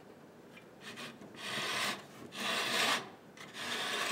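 Three rasping rubs of plastic being handled, each about half a second long: the clear plastic housing and frame of an electricity meter being turned in the hand.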